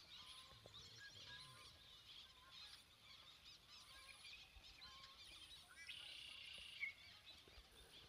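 Faint chorus of many marsh birds calling at once, with a buzzy trill lasting about a second around six seconds in and one sharp, louder note just before it stops.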